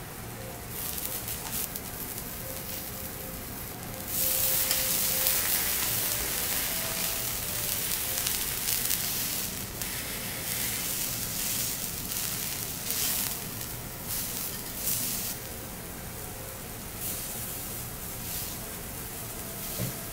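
Halved eggplants sizzling in oil on a hot teppanyaki griddle, pressed down under a spatula. The sizzle jumps louder about four seconds in, then eases off and flares up again in waves.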